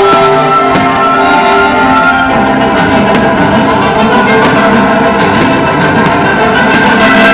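Loud orchestral music with strings and brass, the soundtrack of a fireworks show, with faint pops of fireworks bursts scattered behind it.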